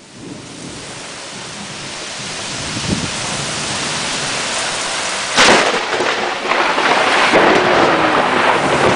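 Heavy, hard-driving rain pouring down, its hiss building over the first few seconds. About five and a half seconds in, a single sharp, very loud clap of thunder from a close lightning strike cracks out, the loudest moment, and the downpour goes on loud after it.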